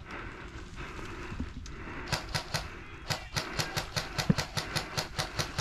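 Airsoft rifle firing a rapid string of sharp clicking shots, a few about two seconds in and then about five a second.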